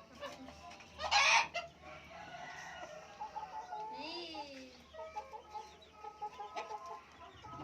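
Ayam Cemani chickens clucking and calling in short repeated notes, with a loud, harsh burst about a second in.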